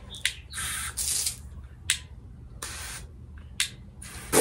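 Garden hose spray nozzle squeezed in several short bursts, each a brief hiss of water spray lasting under a second, the last one near the end the loudest.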